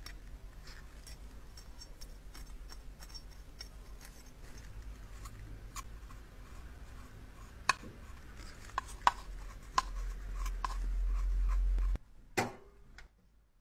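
Scattered small clicks and taps of close-up handling, with a few sharper knocks in the second half over a low hum. The sound drops out abruptly about twelve seconds in.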